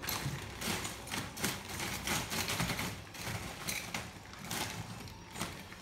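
Ice cubes clinking and clattering in a plastic bag of packaged ice as they are taken out by hand: a quick, irregular run of clicks and knocks.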